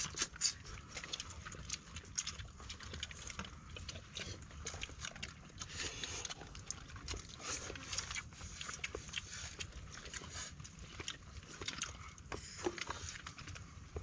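Several people eating with their hands: scattered soft chewing, lip-smacking and small clicks of food and fingers, over a low steady rumble.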